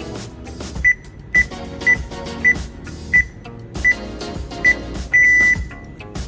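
Maxkin T1 alarm system keypad beeping as keys are pressed: seven short, high beeps about half a second apart, then one longer beep near the end, over background music.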